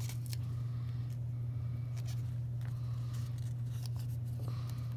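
Light crinkling and faint ticks of a paper sticker strip and washi tape being handled and peeled, over a steady low electrical hum.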